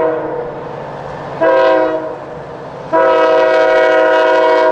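Multi-chime air horn of a rebuilt CSX SD70-series diesel locomotive sounding a steady chord. A blast ends just after the start, a short blast comes about a second and a half in, and a long blast begins about three seconds in and carries on: the closing short-long of the grade-crossing signal.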